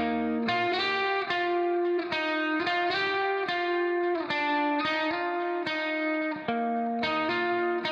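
Background music: a plucked guitar picking out a melody, one note after another.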